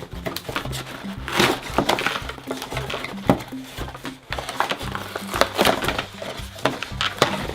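Background music with steady low notes, over repeated clicks and crinkling of toy packaging being pulled open by hand.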